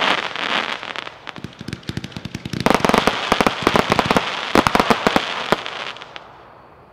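Epic Uncle Sam's Salute, a 168-shot firework cake, firing: rapid sharp pops and crackling bursts, densest from about three to five and a half seconds in, then fading out near the end.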